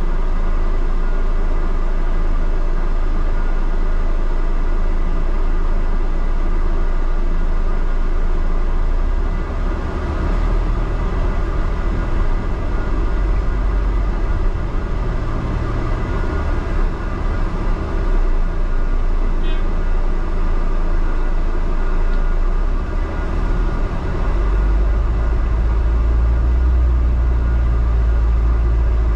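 Double-decker bus's engine and running gear heard from inside the upper deck: a steady low rumble and drone, growing louder near the end as the bus gathers speed.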